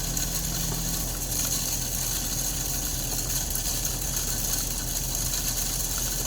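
A steady low engine hum with a continuous high-pitched buzzing, rattling sound over it.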